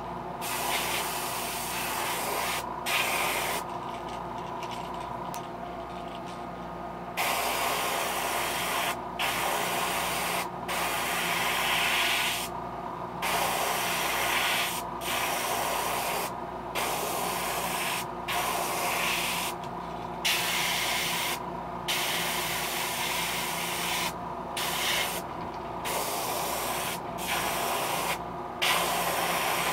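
Airbrush spraying paint with a steady hiss, broken by about a dozen short breaks as the trigger is let off. There is a longer break of about three seconds near the start, and a steady low hum runs underneath.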